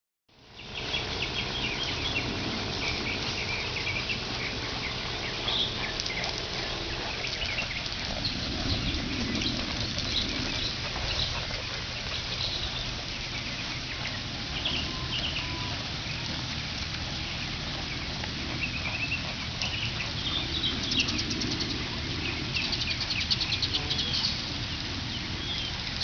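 Birds chirping, with many short high calls scattered throughout and a fast rattling trill a few seconds before the end, over a steady outdoor background rush.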